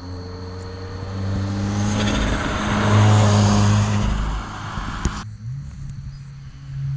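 2018 Subaru WRX's turbocharged flat-four, fitted with a cold air intake and bypass valve, pulling hard under acceleration with a rising intake hiss. The sound cuts off abruptly about five seconds in as the throttle closes, then the engine pulls again.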